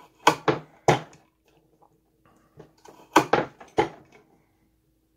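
NorthWest Short Line Chopper, a hand-lever hobby cutter, chopping through a stained wooden dowel: sharp snapping clacks of the blade coming down onto the base, three near the start and four more about three seconds in.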